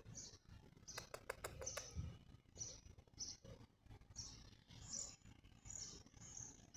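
Faint birds chirping: short high notes repeated every half second or so. A quick run of sharp clicks comes about a second in.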